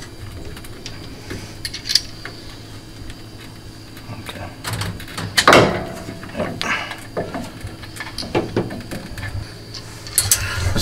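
Handling of a CO2 laser head's metal parts: scattered clicks and light knocks as it is worked free of its mount, with one louder clunk about halfway through, over a steady low hum.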